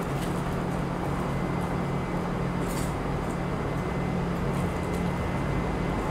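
Steady urban background of distant road traffic: an even rush of noise over a constant low hum.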